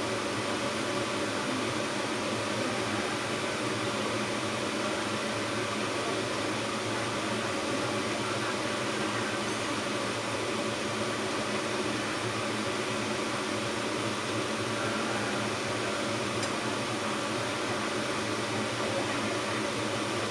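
Steady, even hiss from the stove as naem (Northern Thai fermented pork) stir-fries with egg in the pan.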